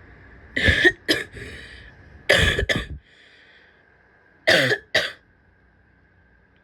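A woman coughing harshly with a barky cough, in three fits of about two coughs each.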